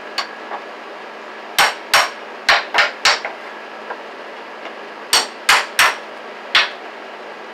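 Hammer blows on a wooden bed frame, knocking a tool into its joints to free the boards: five sharp strikes from about a second and a half in, then four more about five seconds in.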